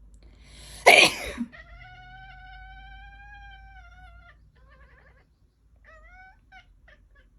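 A loud sneeze about a second in, then a cat's long, drawn-out meow lasting over two seconds, followed by a few short meows.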